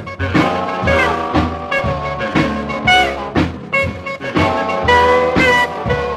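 Instrumental break of an upbeat pop dance song: a steady drum beat under melodic instrument lines, with no singing.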